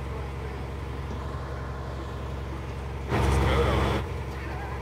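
Aerial ladder fire truck's engine running steadily. About three seconds in, a louder, noisy sound lasts just under a second.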